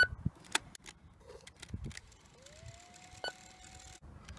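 Buttons on an Aiwa HS-PX580 portable cassette player clicking under a finger: a sharp click with a brief beep at the start, a few lighter clicks, and another short beeping click about three seconds in. A faint whine rises and then holds steady for about a second and a half in the middle.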